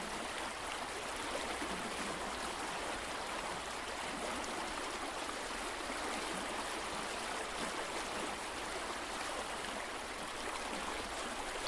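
Steady rush of running water, an even noise with no distinct events.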